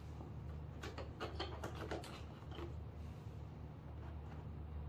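Light clicks and taps of a clear plastic window piece being handled and fitted onto a 3D printed RC car body, clustered between about one and three seconds in, over a steady low hum.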